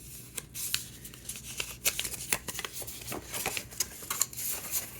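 Paper and cardboard packaging being handled at close range: irregular rustling with scattered small clicks and taps.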